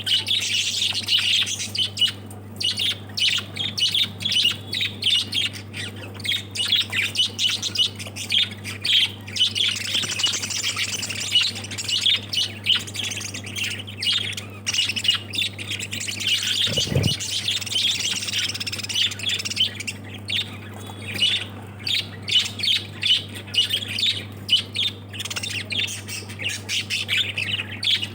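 A flock of lovebirds chattering continuously, with rapid high chirps and squawks, over a steady low hum. There is a single brief thud about seventeen seconds in.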